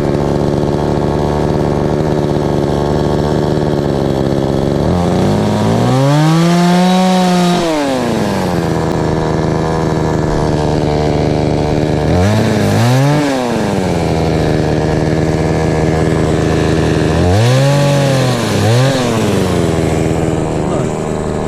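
Gas chainsaw idling steadily, revved up three times. The first rev comes about five seconds in and is held for a couple of seconds before dropping back. Two quick double blips of the throttle follow later.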